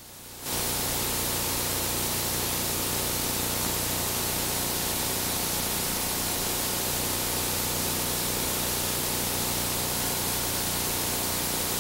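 Steady hiss of static, starting abruptly about half a second in and holding unchanged, with a faint low hum beneath it.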